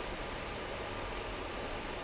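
Steady background hiss, room tone with no distinct events.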